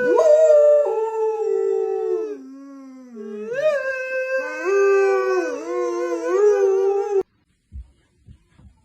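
Dog howling in long, wavering notes that slide down in pitch, joined about halfway by a second howling voice. The howling cuts off suddenly near the end.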